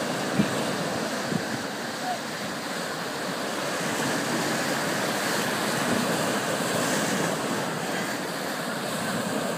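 Small surf breaking and washing up the sand around a shoreline rock, a steady rush of water. There is a brief bump about half a second in.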